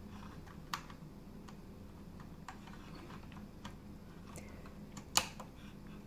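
Small plastic clicks and taps of cable connectors and the drive tray being handled and fitted into an HP ProDesk mini PC, with two sharper clicks, one under a second in and one near the end.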